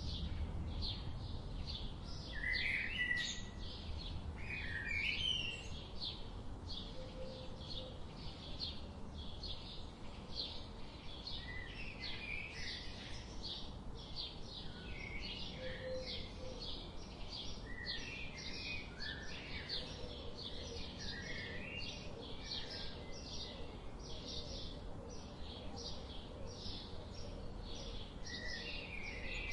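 Many small birds chirping and twittering together without a break, a dense chorus of short high chirps several times a second with warbled phrases among them, over a low steady rumble.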